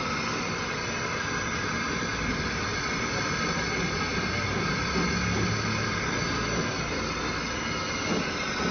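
A metalworking machine tool running steadily in a workshop: continuous mechanical rumble with a faint, steady high whine.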